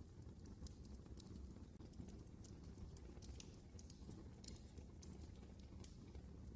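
Wood fire crackling in a fireplace: irregular sharp pops and snaps, several a second, over a faint steady low rumble of the burning.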